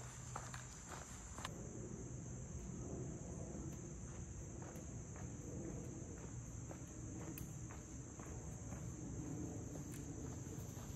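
Steady high-pitched chorus of insects such as crickets, with faint footsteps on a dirt trail beneath it.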